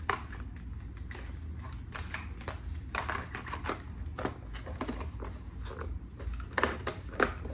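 Irregular clicks and taps of a small plastic ring-light remote being handled and pressed while checking it for a battery, with a few sharper clicks near the end.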